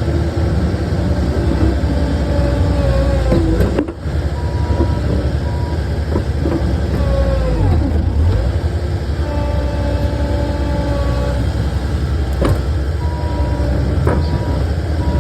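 Takeuchi skid steer's diesel engine running under load, its pitch gliding up and down as the machine works dirt. An interrupted beeping tone comes and goes twice, and there are a couple of sharp clanks near the end.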